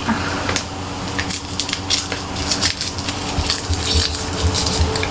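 Foil wrapper of a Hershey's Kiss crinkling as it is picked open by hand: a run of irregular, crisp crackles.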